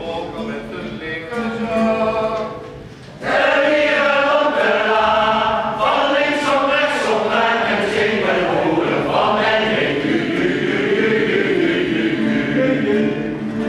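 Amateur mixed choir of men and women singing together. There is a short lull about three seconds in, after which the singing comes back louder.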